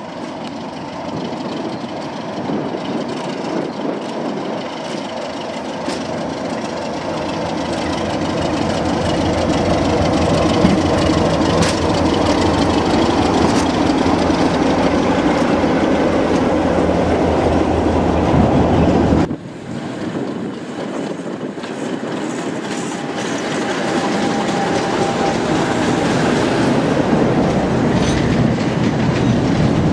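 Class 33 diesel locomotive's engine running steadily as it hauls a train slowly past, growing louder as it nears. After a sudden cut about two thirds of the way in, passenger coaches roll past with a clatter of wheels over rail joints.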